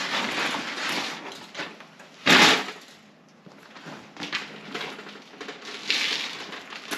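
Fishing gear and a wheeled beach cart being unloaded off a pickup truck's tailgate: uneven scraping, rattling and knocking, with one loud bang a little over two seconds in.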